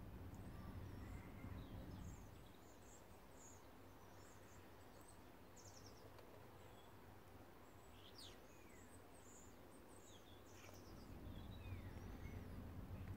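Faint outdoor ambience: small birds chirping on and off in the distance over a low steady rumble.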